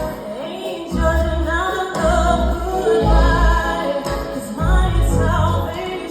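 Live song: a woman singing with sliding, held melodic lines over instrumental accompaniment with deep bass notes that swell and fade every second or two.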